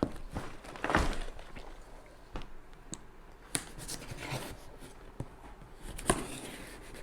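Large cardboard Lego set box being handled and opened by hand: scattered taps, scrapes and knocks on cardboard, the loudest about a second in.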